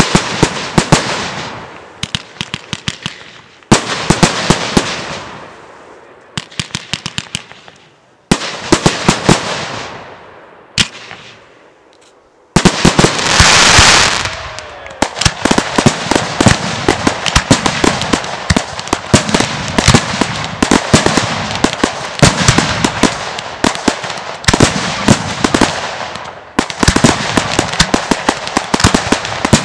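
Aerial firework shells bursting three times in the first ten seconds, each bang followed by a trail of crackling that dies away. About twelve and a half seconds in, a dense barrage starts: a loud hiss, then continuous crackling and popping of crackle stars to the end.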